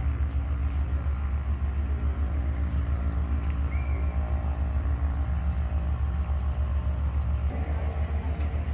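Steady low rumble of a running engine, with a fast, even flutter in its loudness.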